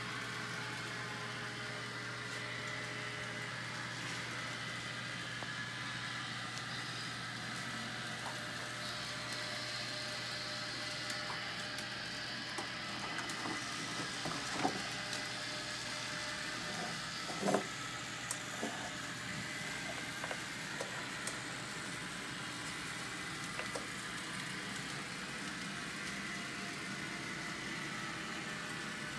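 Model trains running on a layout: a steady electric whir and hum, with a scatter of small clicks in the middle, two of them louder, as wheels pass over rail joints and crossings.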